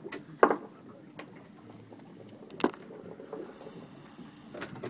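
Fishing reel working under load from a hooked snapper on a hard-bent rod: mechanical clicking and gear noise, with a few sharp knocks in the first few seconds and a thin high sound about three and a half seconds in.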